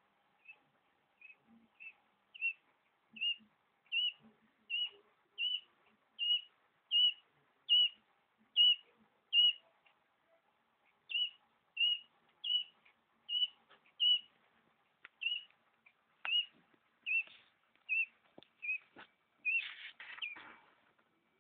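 Newly hatched quail chicks peeping: short, high, arched single peeps repeated steadily about once every three quarters of a second, with a short pause about ten seconds in. Near the end the peeps come closer together, with some rustling and a few light clicks.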